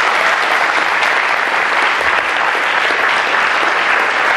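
An audience of many people applauding steadily.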